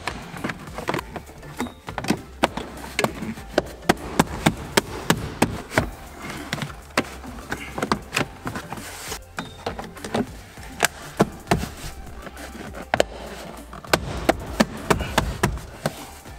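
A quick series of sharp knocks and snaps, a couple each second with a short pause about two-thirds of the way through: plastic interior trim side panels being pushed and tapped into their clips.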